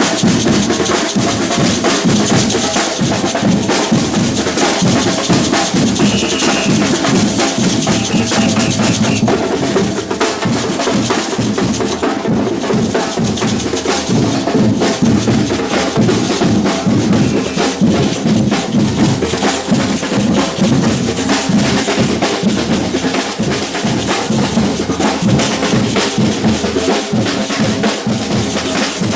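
Batucada drum ensemble playing a loud, continuous samba rhythm, deep bass drums under snare drums.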